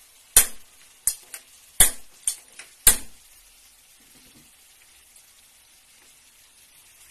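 Metal spatula knocking and scraping against a frying pan about seven times in the first three seconds as sweet potato pieces are turned in hot oil and caramelized sugar, a low sizzle of frying continuing underneath.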